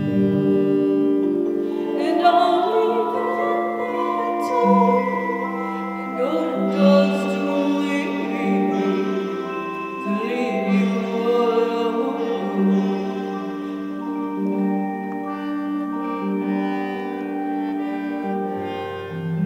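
Hand-pumped harmonium playing sustained, slowly changing chords over a held low note. A wordless singing voice wavers above it in the middle.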